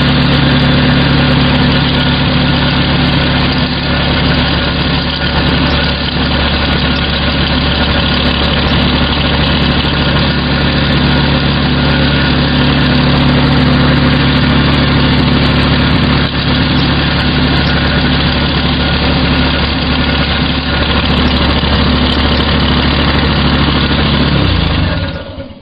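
Electric power sander running steadily while a piece of canary wood is sanded on it. Near the end the motor is switched off and winds down.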